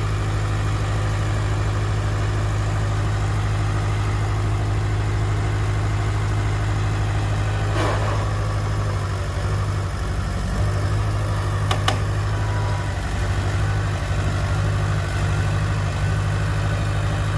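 Heavy diesel engine of earth-moving machinery running steadily with a deep hum, its note wavering for several seconds in the second half. There is a brief scraping sweep about eight seconds in and two sharp clicks about twelve seconds in.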